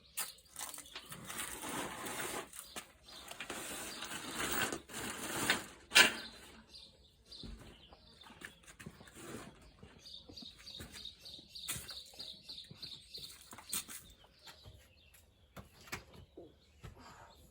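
Things being shifted around with rustling and scraping, ending in one sharp loud knock about six seconds in, followed by scattered light clicks and knocks. A bird chirps repeatedly in the background around the middle.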